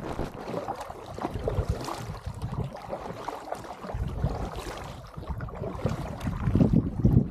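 Double-bladed kayak paddle strokes: the blades dip and pull through the water on alternate sides, splashing, with water washing along the hull. Gusts of wind rumble on the microphone at times.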